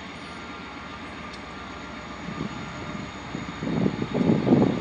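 Norfolk Southern diesel freight train rumbling in the distance, swelling in uneven louder surges through the second half.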